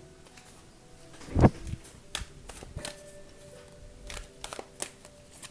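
A deck of cards shuffled and handled by hand: a string of short, sharp card snaps, with one heavier thump about a second and a half in.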